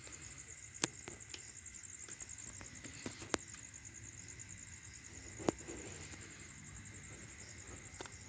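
Insects chirring steadily in a fast, even trill, with a few sharp clicks, loudest about a second, three and a half and five and a half seconds in, as a dog chews on a dead fish.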